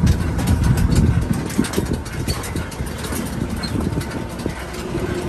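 Three-wheeled tricycle driving along a rough concrete road, heard from inside its cab: a steady low rumble with frequent small knocks and rattles, and a faint steady hum coming in near the end.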